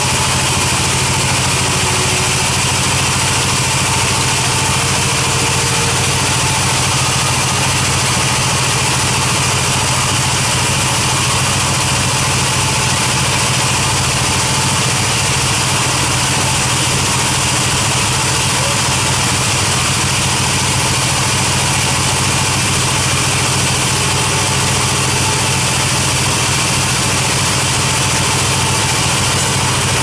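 Sawmill band saw running steadily as a thick albasia (sengon) plank feeds through the blade: a constant machine hum under a continuous high hiss, with no let-up.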